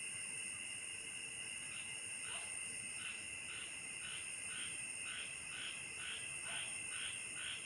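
Chorus of calling insects: several steady high-pitched trills, joined about two seconds in by a pulsing call that repeats about twice a second, with a couple of brief rising chirps.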